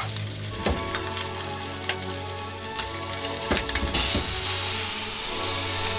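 A slab of pork belly sizzling as it fries in oil in a nonstick frying pan, with a few clicks of metal tongs against the pan as it is turned and blotted. The sizzle gets louder about four seconds in.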